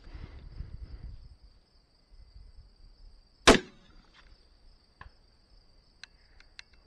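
A single rifle shot about halfway through: one sharp crack with a short echo.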